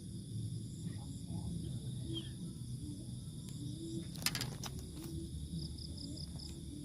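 Crickets and other insects calling in a steady high chorus, with a run of short quick chirps near the end. A brief clatter of sharp clicks a little after four seconds is the loudest moment.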